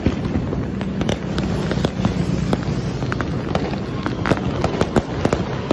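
Fireworks and firecrackers going off all around: many sharp bangs and cracks at irregular intervals, some near and loud, others distant, over a continuous low din.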